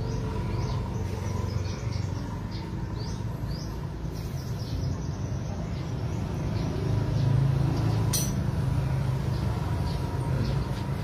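Steady low rumble of background noise, swelling about seven seconds in, with faint bird chirps and a single sharp click about eight seconds in.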